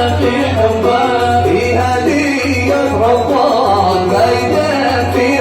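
Yemeni Sanaani song music played on the oud, a plucked melody running on without sung words being picked out.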